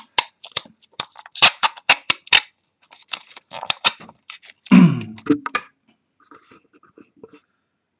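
Thin plastic protective film peeled off the back of a smartphone and crumpled in the hand: a quick run of sharp crinkles and crackles that thins to a few faint ticks near the end. A short voice-like sound breaks in about five seconds in.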